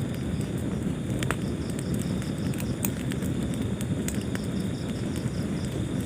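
Wood fire burning in a fireplace: a steady low rumble of flames with scattered crackles and pops, a few sharper snaps about a second in, near three seconds and about four seconds in.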